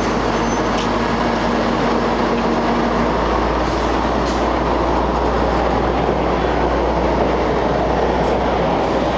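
Passenger railcar moving off slowly alongside the platform at close range: a steady rumble of engine and wheels on the rails, with a few short sharp clicks. A held engine note drops away about three seconds in.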